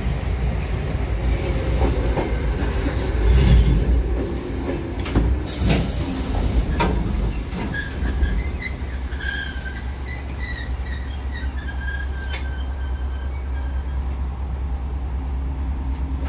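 An oncoming electric commuter train passes close by on the adjacent track, rumbling and clattering, with high wheel squeal that fades out about 13 seconds in. It is heard from inside a standing train's cab, where a steady low hum remains once it has gone.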